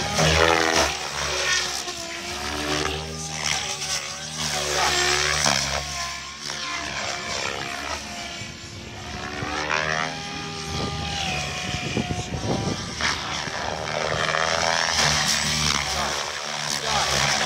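SAB Goblin 700 electric radio-controlled helicopter flying aerobatics: its rotor blades and motor whine, rising and falling in pitch again and again as it swoops and turns.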